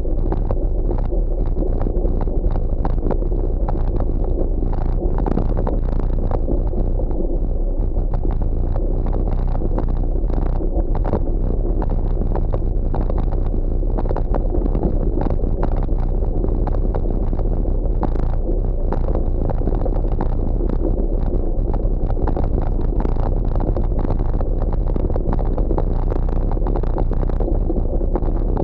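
Steady wind rush over the microphone of a gravel bike being ridden on a rough dirt trail, with frequent knocks and rattles as the bike bounces over the bumps.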